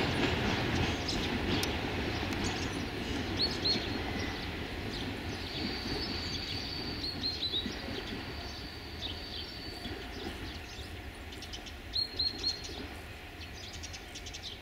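Departing passenger train of double-deck coaches hauled by an LDH diesel-hydraulic locomotive, its rolling rumble fading steadily as it pulls away. Small birds chirp in short quick runs of high notes a few times, and a thin high whistle holds for a few seconds in the middle.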